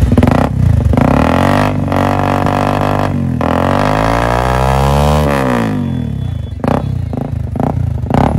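Honda CBR250R's single-cylinder engine running through a Royal Enfield Bullet silencer held by hand on the header pipe: the revs climb slowly to a peak about five seconds in, then drop quickly back to an uneven idle.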